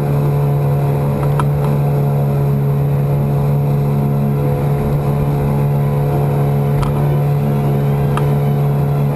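Yamaha 9.9 hp two-stroke, two-cylinder kicker outboard running steadily at wide open throttle, pushing a loaded boat along with a constant drone.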